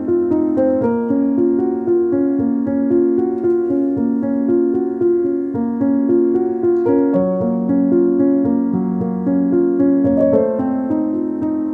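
Background piano music: a steady, flowing run of notes.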